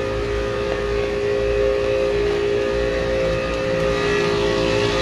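Outdoor air-conditioning condenser unit running close by: a steady compressor and fan hum with two held tones over a low rumble, very loud.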